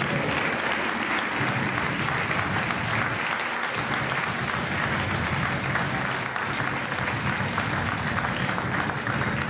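Theatre audience applauding steadily, a dense mass of hand claps.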